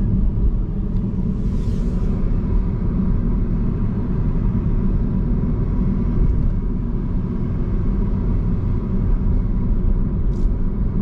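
Steady low rumble of road and engine noise inside the cabin of a moving Mazda Axela hatchback.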